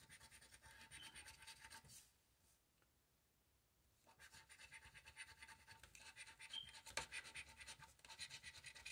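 Faint, rapid scratching on a paper lottery scratch-off ticket, rubbing off its coating. The scratching runs for about two seconds, stops for about two seconds, then resumes about four seconds in and goes on steadily.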